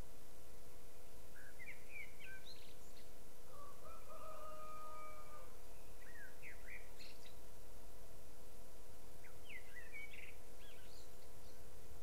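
Birds calling: three short bursts of quick, high chirping notes, with one longer, held call about four seconds in, over a steady background hum and hiss.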